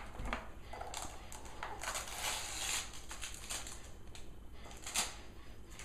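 Wrapping paper and a cardboard gift box crinkling and rustling in irregular bursts as a present is unwrapped, loudest about two seconds in, with a sharp tap about five seconds in.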